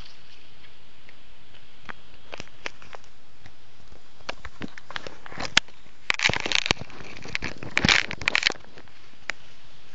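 Crunching and crackling of footsteps on dry leaves and twigs: scattered clicks, then two short bursts of crunching about six and eight seconds in.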